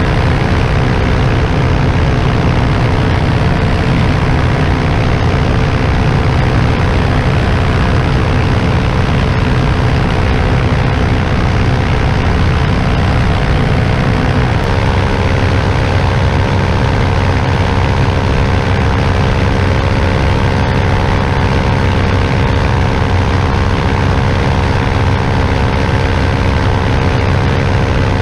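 Vittorazi Moster 185 single-cylinder two-stroke paramotor engine and propeller running steadily in flight. The engine note steps up slightly about halfway through.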